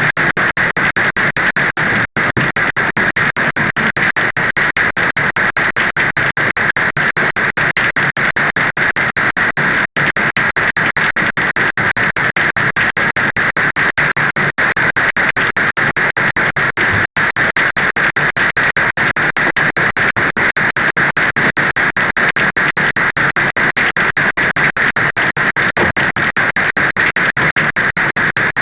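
Heavy rain, a loud steady hiss of dense drops that cuts out for an instant three times.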